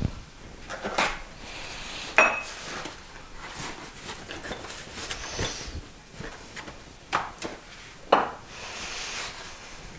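Parts being handled on a stone kitchen countertop: a few sharp knocks and clinks as things are picked up and set down, the loudest about two seconds in with a short metallic ring, and rustling near the end.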